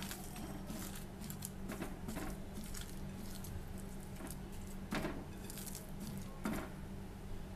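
Hands squishing and kneading a wet raw minced-beef kabab mixture in a bowl: irregular soft squelches and pats, with two louder slaps about five and six and a half seconds in, over a steady low hum.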